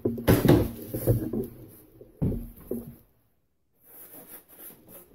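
Corded DeWalt jigsaw cutting through the fiberglass bulwark of a model ship hull to open a scupper, running for about a second and a half before stopping. A short sharp burst follows about two seconds in, then faint handling sounds as the hull is moved.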